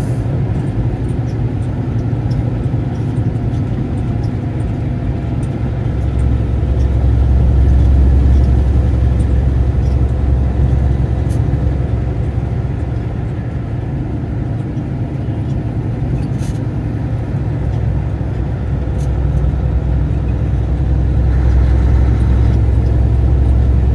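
Low, steady engine drone and road noise heard inside the cab of a truck pulling a loaded trailer at highway speed, swelling about six seconds in and again near the end.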